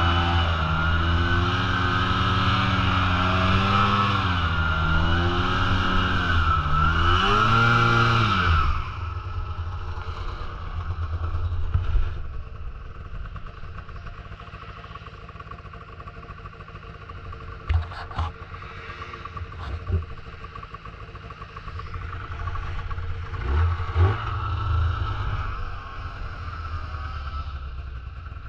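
Snowmobile engine running under throttle, its pitch rising and falling for about eight seconds, then dropping away suddenly to a quieter low steady running sound broken by a few sharp clacks.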